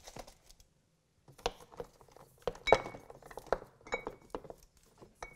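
Glass spice jars, sauce bottles and cans on a pantry shelf clinking and knocking against each other as hands feel along the shelf: a string of irregular light clinks and taps, a few of them ringing briefly.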